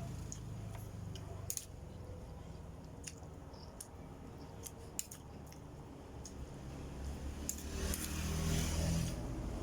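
A person eating up close to the microphone: chewing with scattered wet mouth clicks, and a louder stretch of chewing or handling near the end.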